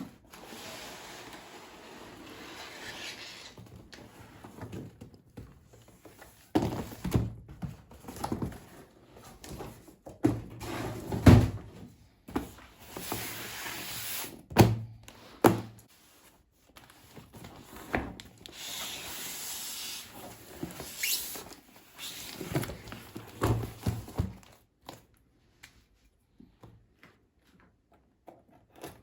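Unboxing handling sounds: packaging rustling and sliding, with scattered knocks and thuds as things are set down. The loudest knock comes about 11 seconds in.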